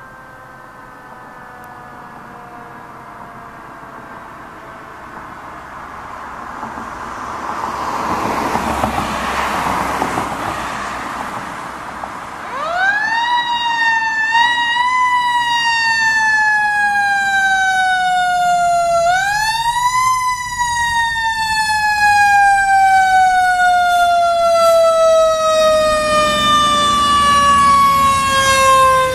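Siren of a Sutphen Monarch fire engine approaching: faint and falling slowly in pitch at first, then it winds up quickly and slowly falls away twice, about twelve and nineteen seconds in, growing louder as the truck comes close. A broad rushing noise swells and fades about a third of the way in, and the truck's engine rumble comes up as it passes near the end.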